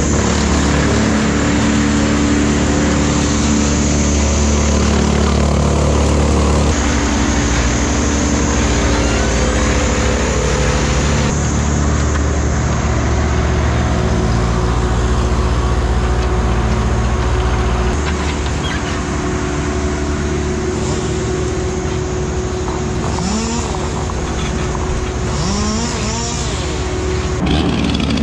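Wood chipper and Bobcat mini excavator engines running steadily as the excavator's grapple feeds brush into the chipper, the sound shifting a few times. Near the end a chainsaw starts up.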